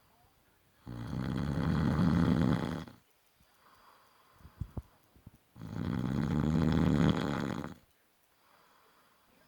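A sleeping man snoring loudly: two long snores of about two seconds each, one starting about a second in and the other just past halfway, with soft breathing out and a few faint clicks in the quiet gap between them.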